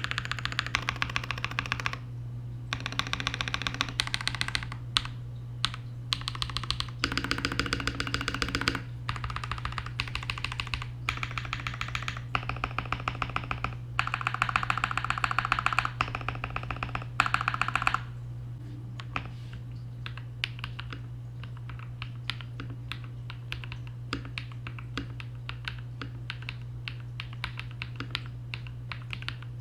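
Mechanical keyboard typing on a KBD67 Lite fitted with lubed and filmed KTT Rose linear switches: quick runs of keystrokes for about the first eighteen seconds, then slow, separate keypresses. A steady low hum sits underneath.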